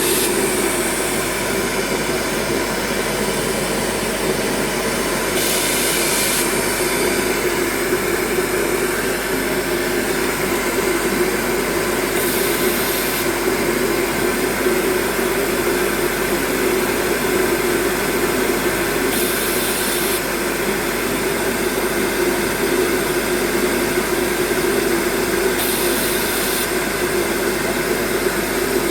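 Laser welding equipment running with a steady mechanical hum. A short high hiss comes about every six to seven seconds, four times.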